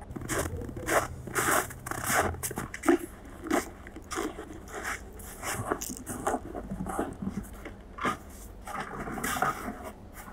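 Footsteps crunching in snow: a run of irregular scraping, crunching steps, roughly two a second.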